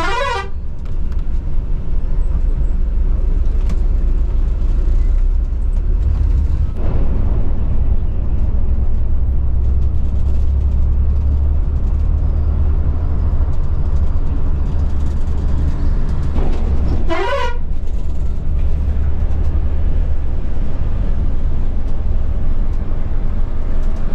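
Low, steady drone of a Volvo B11R coach's diesel engine and road noise heard from the driver's cab, growing stronger about seven seconds in. A vehicle horn sounds briefly twice, once at the start and again about seventeen seconds in.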